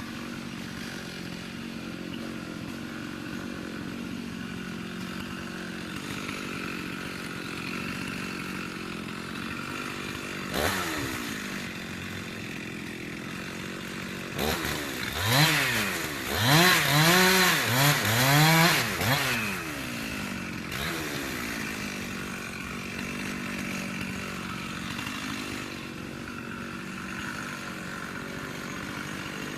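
Two-stroke chainsaw idling steadily, blipped once about ten seconds in, then revved up and down four or five times in quick succession around the middle before settling back to idle.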